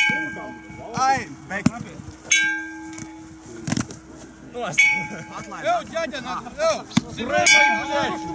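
Metal timekeeping gong counting the Jugger 'stones', struck about every two and a half seconds, each strike ringing on, with sharp knocks between the strikes.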